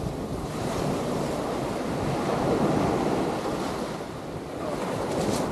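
Rough sea surf breaking and washing on the shore, swelling towards the middle and easing off about four seconds in, with wind buffeting the microphone.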